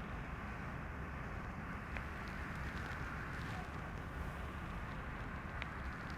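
Steady background noise with a few faint, short clicks, about two seconds in and again near the end.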